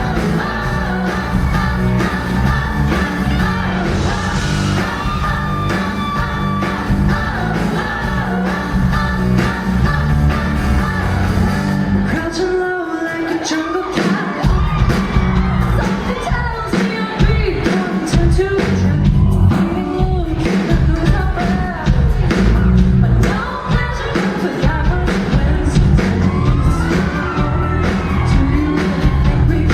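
Live pop-rock band performance with a woman singing lead, heard in a large hall. The bass and drums drop out briefly about twelve seconds in, then the full band comes back in under the vocal.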